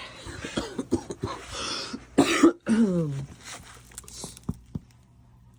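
A person coughs and clears their throat a little over two seconds in, ending in a short falling voiced sound. Before it, plastic packaging crinkles as it is handled.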